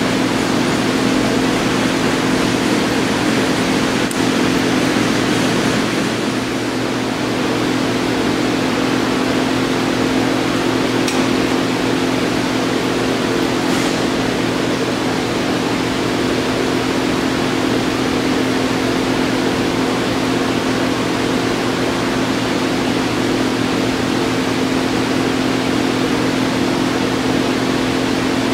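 Hardinge HLV-H toolroom lathe running under power: a steady hum of the motor and spindle drive, with the level dipping slightly about six seconds in and a couple of faint ticks later on.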